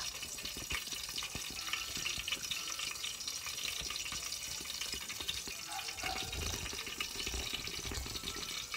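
Cooking oil heating in a lidded electric rice cooker pot: a steady hiss with fine, fast crackling as the oil gets hot. A few low bumps about six to seven seconds in.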